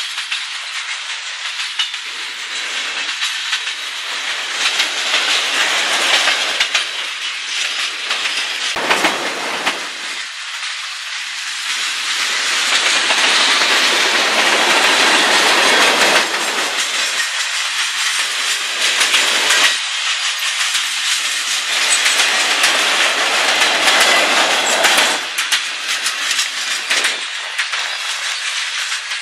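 Freight train cars rolling past at close range: steel wheels running on the rails with a steady hiss and clicks of wheels passing over rail joints, the noise swelling and easing as the cars go by.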